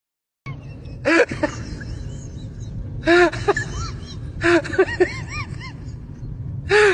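Dog whining in short, high, arching whimpers, four bursts a second or two apart, over a steady low background rumble, after half a second of silence at the start.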